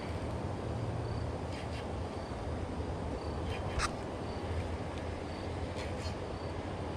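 Outdoor creek-side ambience: a steady low rumble under a faint short high chirp that repeats about once a second, with a few sharp ticks, the sharpest about four seconds in.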